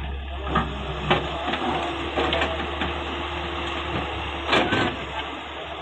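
Heavy diesel earthmoving machinery running steadily, with several sharp knocks and clanks scattered through.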